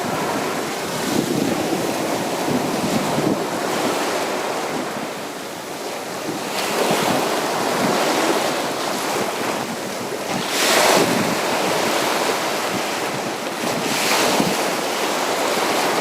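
Sea surf on a beach: a steady wash of waves, with louder waves breaking about 7, 11 and 14 seconds in.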